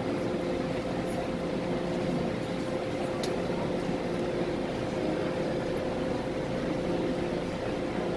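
Steady interior hum of an MTR train carriage: an even rumble with a few held, steady tones.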